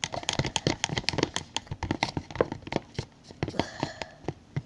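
Thick glue mixture for slime being stirred in a mixing bowl, with a fast, irregular run of sticky, wet clicks and crackles.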